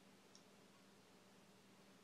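Near silence: room tone with a faint steady hum and a single small click about a third of a second in.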